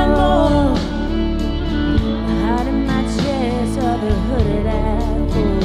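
Country-style music: a voice singing over a karaoke backing track.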